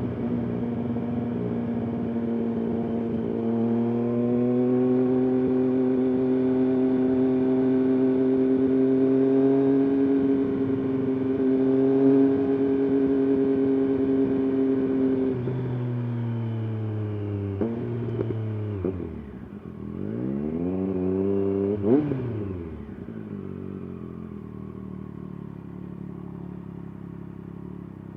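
Triumph Daytona 765's three-cylinder engine running steadily under throttle, its note then falling as it slows. A few quick dips and climbs in engine pitch follow, the last one peaking sharply, before it settles to a lower, quieter steady note.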